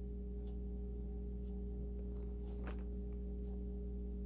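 A steady low hum, with a few faint clicks and rustles from a ball of yarn being turned in the hands and a strand drawn out.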